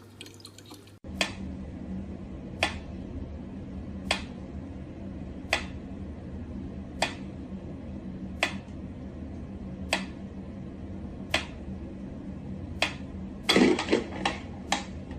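Mechanical pendulum metronome ticking slowly, one sharp tick about every second and a half. Near the end there is a short cluster of louder knocks and clicks.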